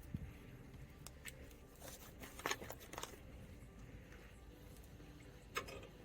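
Faint, scattered clicks and rustles of hands working with tools and wire, with a sharper click about two and a half seconds in and another near the end.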